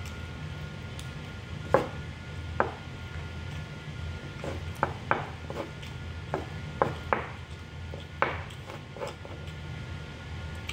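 Metal spoon and fork clicking and scraping against each other and the plate as rice is scooped up and eaten, about ten sharp, irregular clicks over a steady low hum.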